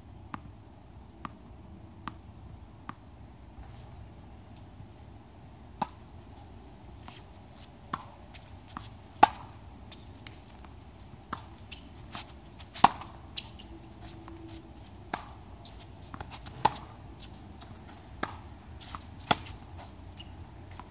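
Tennis ball bounced several times on a hard court before a serve, then a rally. The racket strings strike the ball with sharp pops, the nearer player's hits loudest, with quieter bounces and the far player's hits in between.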